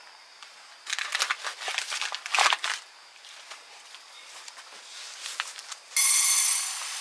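Plastic packaging crinkling and rustling as it is handled, loudest about two and a half seconds in. About six seconds in, dry rice starts pouring from a plastic bag into a pot: a sudden steady hiss that slowly tapers off.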